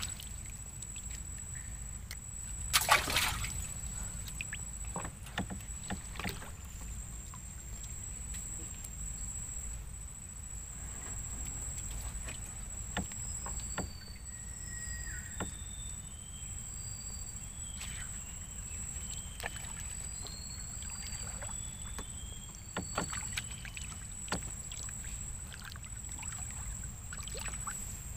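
Single-bladed paddle stroking the water beside a wooden canoe: slow dips, drips and light sloshing, with a louder splash about three seconds in. A steady high thin insect drone and a few short high chirps sound behind it.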